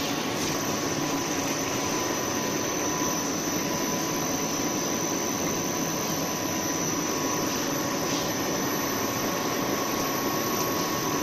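Twin-screw snack extruder line running: a steady machine noise with two constant whining tones, one middling and one high.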